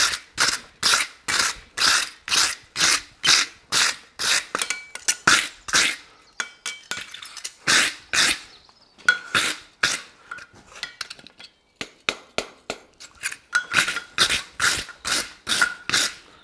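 Wooden-backed wire brush scrubbed back and forth over a freshly forged steel horseshoe on the anvil face, in brisk strokes about two to three a second with a few short pauses. This is the final cleanup of the finished shoe.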